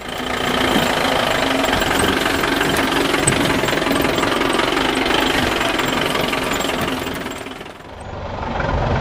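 Truck engine sound effect running steadily with a fast rattling knock, fading in at the start and fading away about eight seconds in. Another, deeper engine sound swells in near the end.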